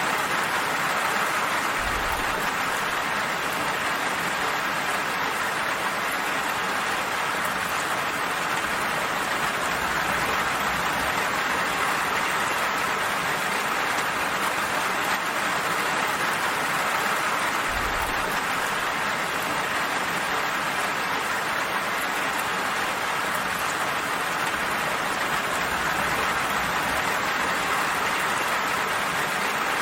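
Steady, even rainfall pattering down, with no letup or change.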